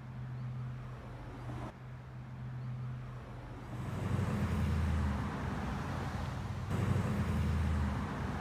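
Low rumble of road traffic passing, swelling louder from about four seconds in.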